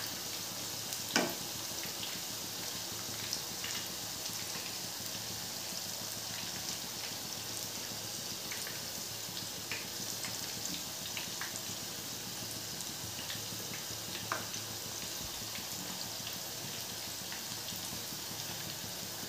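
Shakkar pare (layered maida dough) deep-frying in moderately hot oil in a pan: a steady sizzling hiss with a few small sharp pops and ticks, the sharpest about a second in.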